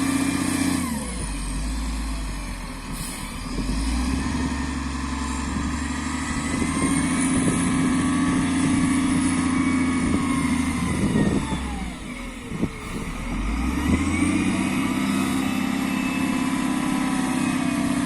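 Diesel engine of an SDLG L968F wheel loader running under work load, its speed dropping and rising again twice: it falls about a second in, climbs back over the next few seconds, sags around the middle and revs up again a few seconds before the end.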